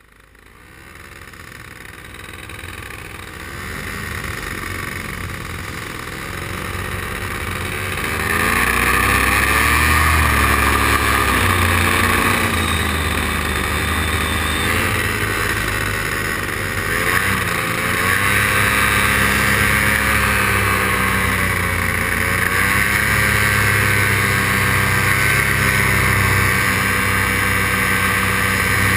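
Paramotor engine and propeller running in flight, its pitch rising and falling as the throttle changes. It grows louder over the first several seconds, then holds steady.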